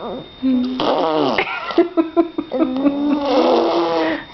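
A small child making fart noises with the mouth: buzzy, wet raspberries mixed with voiced squeals, with a rapid run of buzzing pulses about halfway through.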